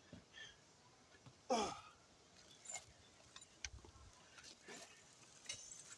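A man sighing once, a short breathy exhale that falls in pitch, about a second and a half in. A few faint clicks and rustles are around it.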